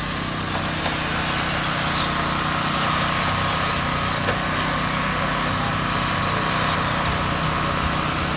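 Several 1/10-scale electric RC touring cars racing, their motors whining high and sweeping up and down in pitch again and again as the cars speed up and slow for the corners, over a steady hum.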